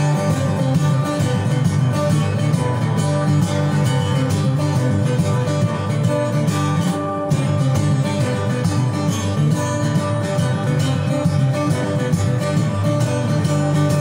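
Solo guitar played live: a fast, unbroken stream of plucked notes over sustained low notes.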